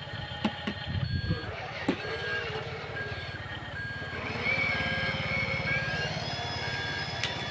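Remote-control Mercedes-Benz toy dump truck's sound effects: a simulated truck engine pulsing evenly, with a reversing beeper sounding a short beep about every three-quarters of a second as the truck moves.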